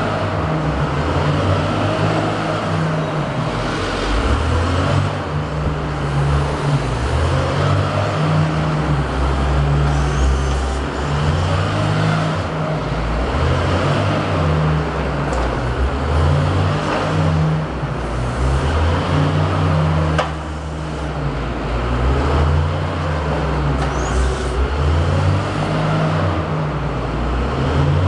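Wheel loader's diesel engine running, its speed stepping up and down as the machine drives and works the hydraulic bale clamp. There is a single sharp knock about two-thirds of the way through.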